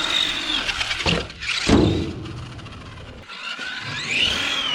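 Brushed electric motor of a 1/10 scale Kyosho Mad Van RC van, whining as it is throttled: the pitch rises and falls, then rises and falls again near the end. Two thumps come between about one and two seconds in, the second the louder.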